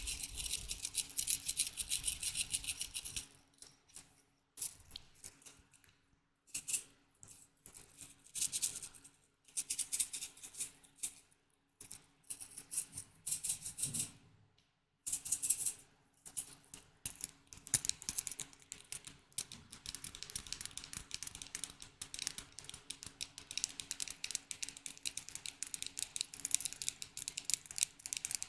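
Close-miked ASMR trigger sounds: rapid tapping and scratching on small objects, coming in dense stretches broken by brief pauses about 3, 11 and 14 seconds in.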